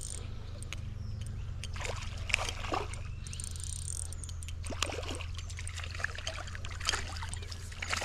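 Short, scattered splashes and sloshing of water from a hooked smallmouth bass thrashing at the surface as it is played in, over a steady low rumble.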